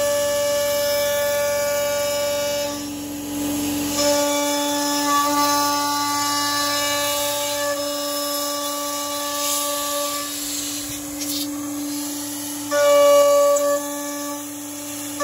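CNC router spindle with a small end mill cutting 20 mm aluminium plate: a steady, high whine made of several pure tones. The set of tones changes abruptly a few times as the cut changes, and it gets louder near the end.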